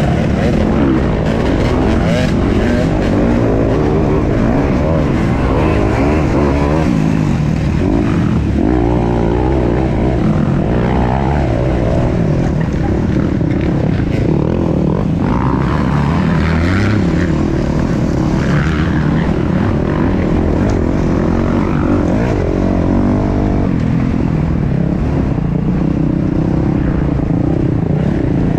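A 250cc dirt bike's engine ridden hard off-road, its revs rising and falling over and over.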